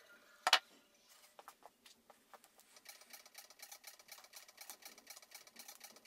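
A sharp click of a hand tool on the wiring about half a second in, then a few lighter clicks and a fast run of faint ticking as the wire ends and crimp connectors are handled.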